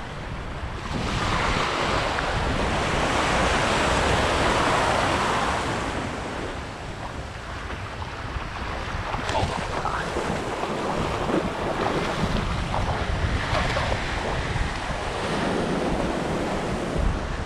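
Small waves washing up on a sandy beach, one surge swelling about a second in and easing off a few seconds later, with wind buffeting the microphone.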